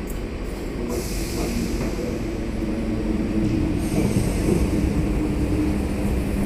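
SNCF Z 6400 electric multiple unit rolling slowly into the platform, its wheels and running gear giving a steady rumble that grows louder as the cars draw past. A high hiss joins about a second in.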